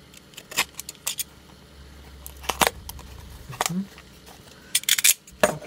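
Snap-off utility knife cutting through the tape and cardboard of a parcel, then the cardboard flaps being pulled open: a run of short, sharp scrapes and rips, heaviest about halfway through and near the end.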